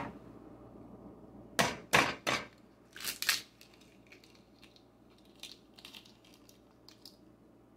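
A hen's egg being cracked: three sharp taps of the shell against a hard edge, then two more crunching knocks as the shell is broken open, followed by a few faint ticks.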